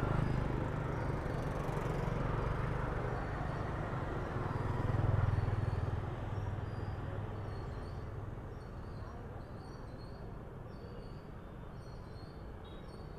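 Outdoor street ambience: a low rumble of passing motor traffic, loudest about five seconds in and then fading, with faint short high chirps in the later half.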